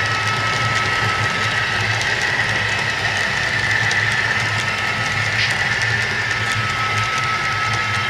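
HO-scale Kato AC4400CW model's sound decoder playing a diesel locomotive engine running steadily through its small onboard speaker. The model hopper wheels click faintly over the rail joints as the train rolls by.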